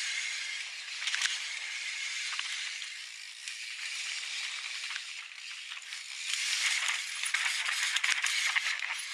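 Mountain bike descending a dirt and rock singletrack: tyres rolling and skidding over the trail surface, with the chain and bike rattling over bumps. The noise turns louder and rougher from about six seconds in.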